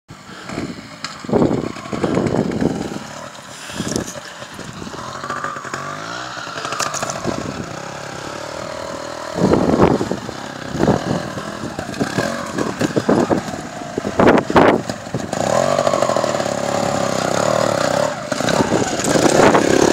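Trials motorcycle engine running and revving in short, irregular throttle blips, with sharp surges about halfway through and again around two-thirds of the way. It grows louder and steadier toward the end as the bike comes close.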